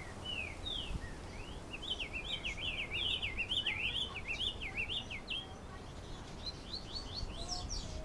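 Diademed tanager (sanhaço-frade) singing its 'galopeado' song: a few separate slurred whistles, then from about two seconds in a fast run of quick rising-and-falling notes, a short pause, and a second run near the end.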